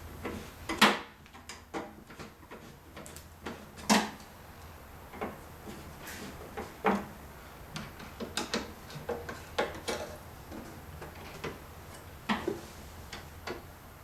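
Irregular clicks and light knocks of a flat-blade screwdriver tightening the screws of a plastic headlight assembly, a few a second, with the strongest knocks about a second in and about four seconds in.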